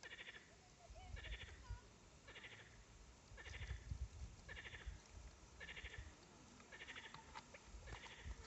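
Frogs calling faintly: a short, pulsed croak repeated about once a second.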